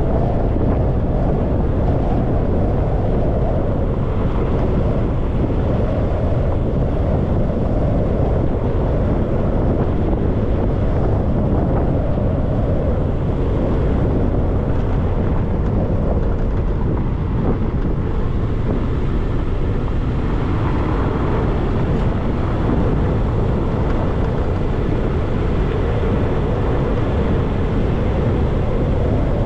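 Steady wind noise buffeting a hood-mounted action camera's microphone on a moving car, mixed with road and tyre noise.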